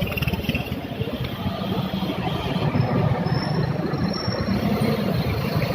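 Motorcycle engine running steadily, a dense low rapid chug under a rushing haze.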